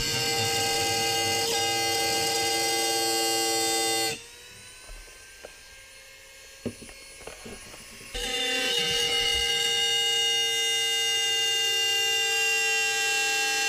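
Corded Dremel rotary tool running at high speed with a steady high-pitched whine as it cuts a notch into the rim of a PVC pipe reducer. It stops about four seconds in, a few light clicks and knocks follow as the piece is handled, and it starts up again about eight seconds in.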